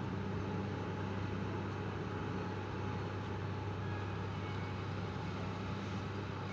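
Sugarcane harvester at work, its engine and machinery running steadily with a low, even hum.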